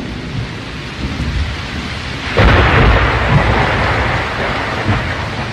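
Steady rain with thunder rumbling, swelling suddenly about two and a half seconds in.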